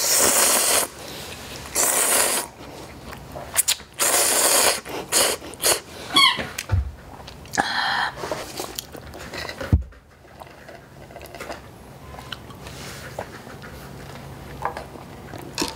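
Instant ramen noodles slurped into the mouth in three loud bursts over the first few seconds, followed by quieter chewing and small mouth clicks.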